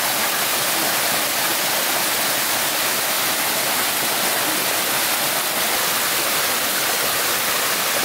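Shallow stream and small waterfall rushing over rocks: a steady, unbroken water noise.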